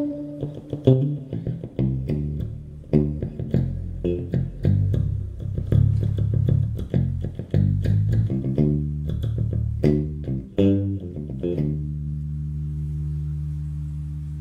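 FL Custom six-string electric bass played solo: a run of quick, sharply plucked notes, then a chord held and left ringing, slowly dying away over the last few seconds.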